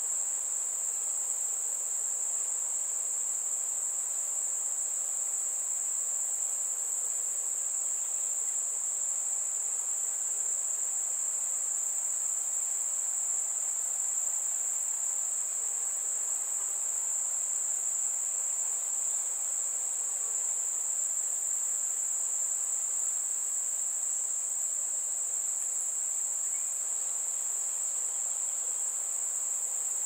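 A steady, high-pitched chorus of crickets trilling without a break.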